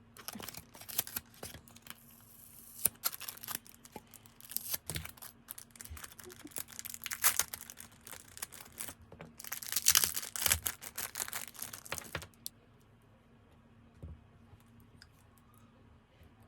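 Packaging being torn open and crinkled by hand in irregular bursts, loudest about seven and ten seconds in, stopping about twelve seconds in. A faint steady hum runs underneath.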